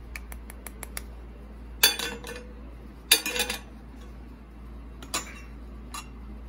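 Small toy cooking pot and lid being handled and set on a toy stove. A run of light clicks comes first, then two loud clanks with a short ring, then two softer knocks.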